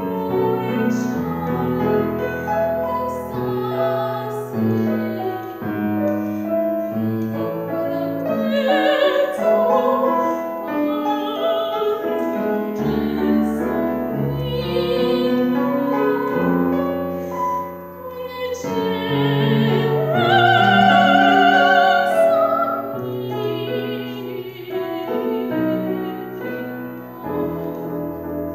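A young woman singing a classical art song in an operatic style with vibrato, accompanied by piano. Her voice is loudest on a high note held a little past two-thirds of the way through.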